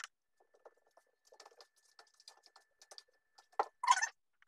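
Small handling noises: faint scratchy clicks and rustles, then a louder short rustle and clatter near the end, over a faint steady high whine.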